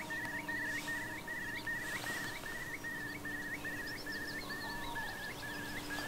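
Marsh birdsong: one bird repeats a short rising note over and over, about two to three times a second, while other birds chirp higher and more faintly, more busily in the second half. A steady low drone runs underneath.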